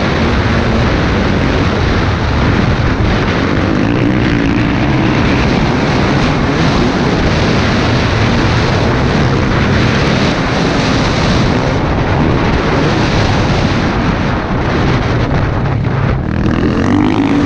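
Dirt bike engine running hard under throttle, with wind rushing over the helmet-mounted microphone. The engine pitch climbs near the end as the rider accelerates.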